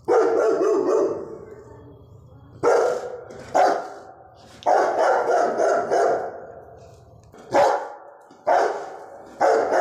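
Rottweiler barking in a run of about seven loud barks, some short and some drawn out.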